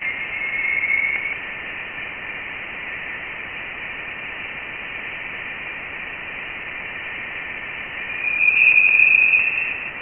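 Sonified spacecraft plasma-wave data presented as the sound of interstellar space, from Voyager 1: a steady band of radio-like static hiss with a faint tone running through it. It grows louder, with a slightly higher tone, about eight seconds in.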